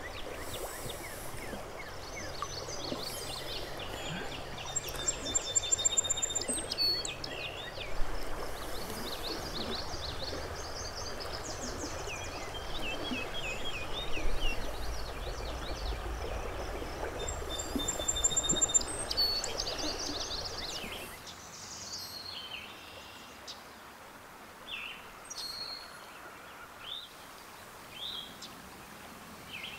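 Birds singing in repeated chirping phrases over the steady rush of a shallow river. About 21 seconds in the water noise drops away, leaving scattered bird calls over a quieter background.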